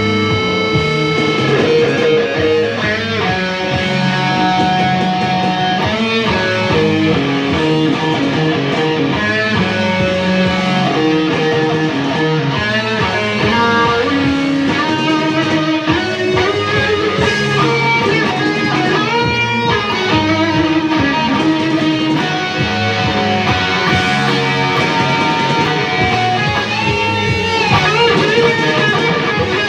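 Electric guitar jam: sustained notes with pitch bends and slides.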